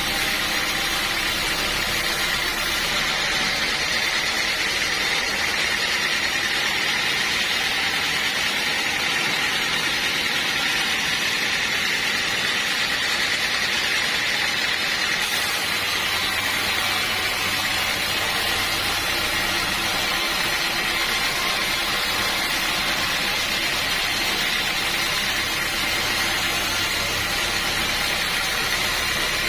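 Sawmill machinery running steadily, a continuous even hiss and hum with no breaks.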